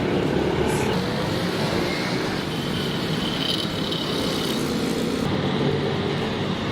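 Steady background noise of a busy street, with road traffic running through it.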